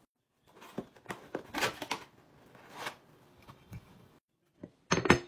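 Downy dryer sheets rustling and crinkling as they are handled and pressed down into a marble container. Near the end comes a short clatter of sharp knocks, the loudest sound here.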